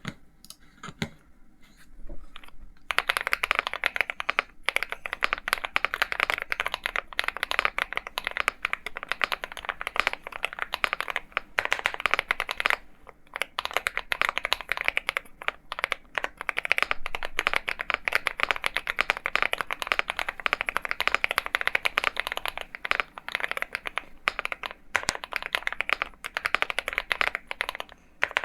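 Typing on an Akko MONSGEEK M1 mechanical keyboard with KTT Kang White V3 linear switches: a few scattered keystrokes at first, then fast continuous typing about three seconds in, with two short pauses.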